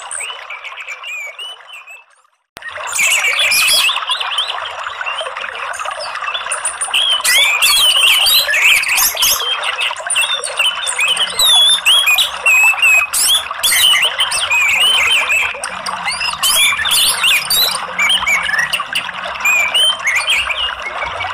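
Dense birdsong, quick chirps and warbled phrases, over a steady rush of running water: a therapy and lure track for caged orange-headed thrushes. The track fades out and drops to silence about two seconds in, then starts again half a second later.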